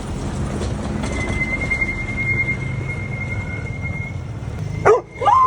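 A vehicle in motion: a steady low rumble of engine and road noise, with a thin, steady high squeal joining about a second in and holding until the sound cuts off near the end.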